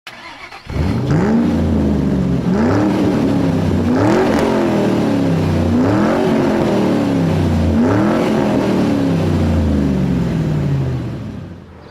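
Car engine revved repeatedly, about five times: each rev climbs quickly in pitch and then winds down slowly. The sound fades out near the end.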